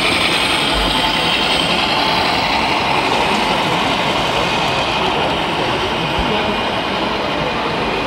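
Steady, dense din of a crowded exhibition hall: many voices and machine noise blended into one continuous rumble, with no single sound standing out.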